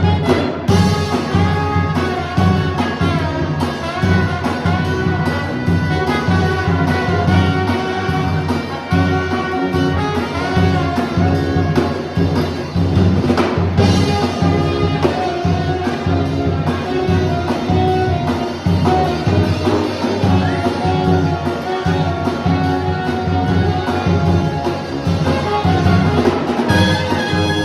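Upbeat orchestral music with brass and drums, a trumpet-led tune over a steady beat.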